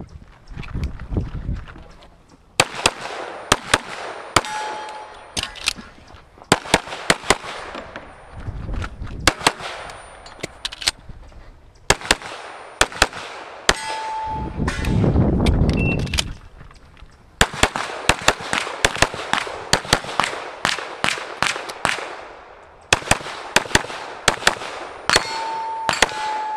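STI Trojan .45 ACP pistol firing rapid strings of shots in clusters of pairs and bursts, with short pauses between clusters. Some shots are followed by the ring of struck steel targets.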